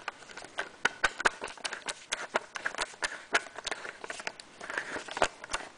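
Irregular clicks and clacks, several a second, of a Fire-Lite BG-10 fire alarm pull station being handled while it is reset.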